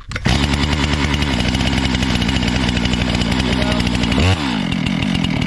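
Stihl two-stroke chainsaw engine catching on a pull of the starter cord and running at a steady, loud fast idle; about four seconds in its note changes abruptly and settles into a different running speed.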